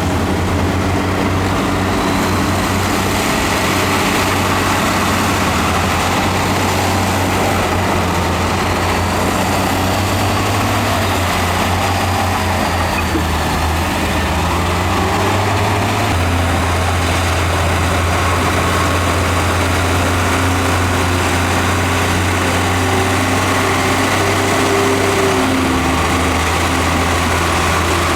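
Heavy diesel engine of earthmoving equipment running steadily under work, with its low engine note shifting about halfway through and again near the end.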